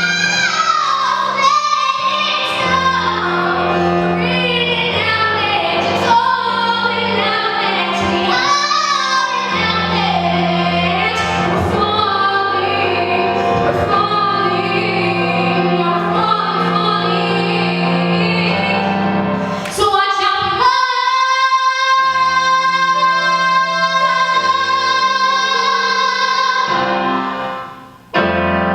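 Young female singer with accompaniment singing the last phrases of a song, ending on one long held note from about twenty seconds in that fades out shortly before the end.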